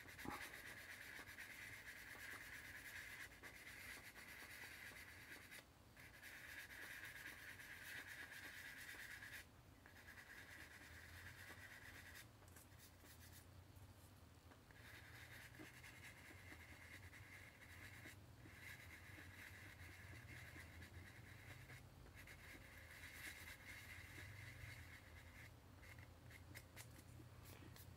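Faint scratchy rubbing of a sanding stick worked along the plastic body of a model car kit, taking down a raised mold seam line. It goes in long stretches broken by a few short pauses.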